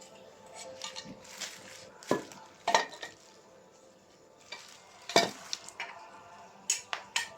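Metal hand tools and engine parts clinking and knocking against each other, with a few sharp metallic strikes that ring briefly, between quieter scraping and handling.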